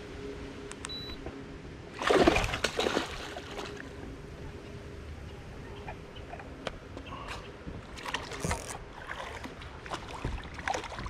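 A hooked snook splashing and thrashing at the water's surface while being played on a rod: one loud splash about two seconds in, then smaller splashes and sloshing later on.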